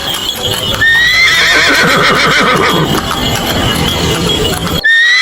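Horse whinnying: a high call that rises briefly and then falls away in a long wavering whinny about a second in, and starts again near the end.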